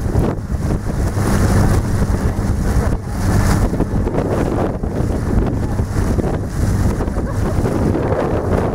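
Heavy wind buffeting the microphone over the steady hum of a Zodiac inflatable boat's outboard motor running under way.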